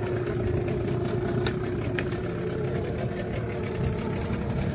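A small fishing boat's engine idling, a low steady rumble with a faint steady hum over it that fades near the end.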